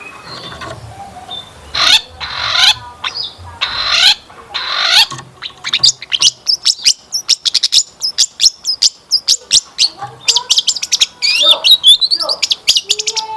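Long-tailed shrike singing. It gives four harsh rasping calls in the first few seconds, then a fast chattering run of sharp notes, then quick warbled phrases near the end. The song is full of mimicked fill-in phrases typical of a cendet in full song.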